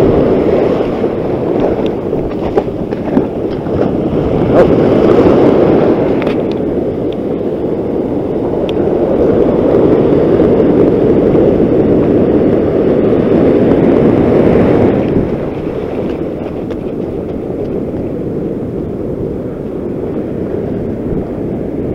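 Wind on the microphone over breaking surf, a steady loud rushing noise that eases a little about fifteen seconds in.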